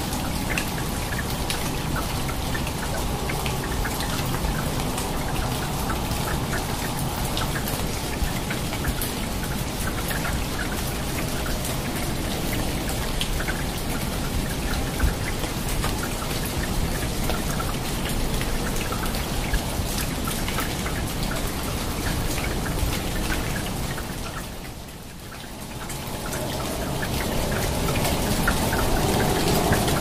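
Steady rain falling on rainforest foliage, with many single drops striking close by. It fades down about 25 seconds in and swells back up near the end.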